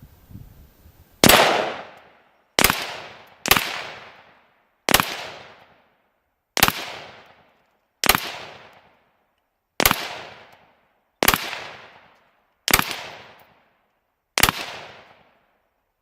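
Ten single shots from an AR-15 rifle firing reloaded 50-grain frangible rounds, fired one at a time about one to two seconds apart. Each is a sharp crack with a fading tail.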